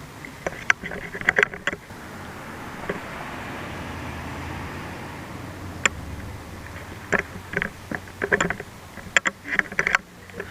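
A vehicle going by: a rushing sound that swells over a few seconds and fades, with scattered clicks and knocks.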